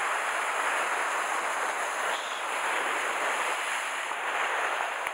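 Sea surf washing and foaming over rocks just below, a steady rush of white water.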